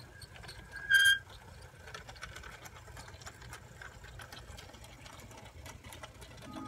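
Small electric motors and gears of animated Christmas village pieces whirring steadily with light clicking. About a second in there is one short, loud, high-pitched ding.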